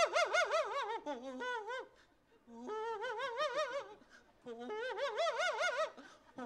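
A man's voice imitating an animal call into a hand-held microphone: three long warbling bouts, each wobbling rapidly up and down in pitch, with short breaks about two and four seconds in.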